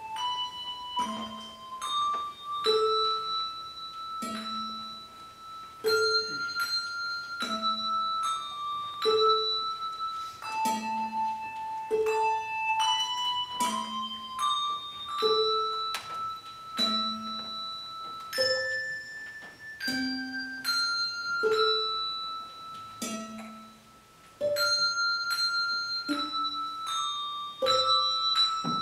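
Two handbell ringers playing a slow minor-key piece: ringing bell notes carry the melody over a low bass note that comes back about every one and a half seconds.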